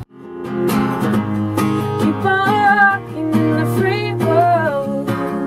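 Song with strummed acoustic guitar and a woman singing. It fades in quickly at the start, and the voice comes in about two seconds in.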